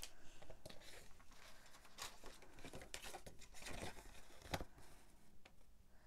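Sheets of cardstock and patterned paper being handled and slid against each other: soft rustles and light taps, with brief louder swishes about two seconds in and again between three and a half and four and a half seconds in.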